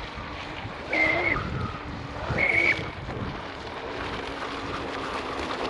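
RC catamaran's 4082 brushless motor whining in two short throttle bursts, about a second in and again at two and a half seconds, over steady wind noise. The motor spins up because the drive collet is slipping on the motor shaft.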